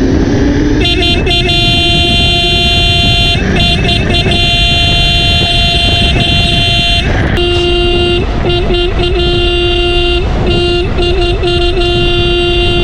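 Electric scooter's horn honked over and over in long and short blasts, its pitch dropping to a lower tone about seven seconds in. A steady wind-and-road rumble runs underneath.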